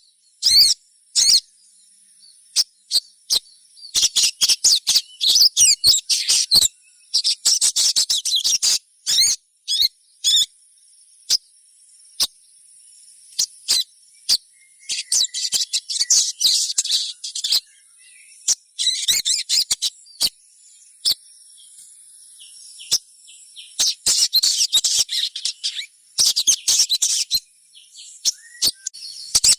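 Little spiderhunter (sogon) giving sharp, high chirps, sometimes singly and sometimes in dense rapid chattering runs lasting a second or two, said to be the calls of a young bird. A steady high whine runs behind them.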